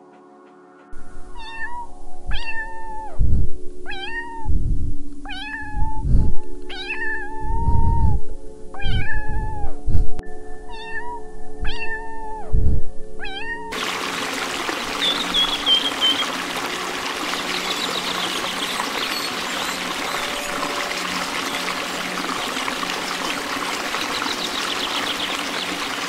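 A pet animal's repeated cries, about eight short calls that rise and fall, with low thuds between them over a steady low hum. About halfway through it cuts to a steady rush of running water with a few high chirps.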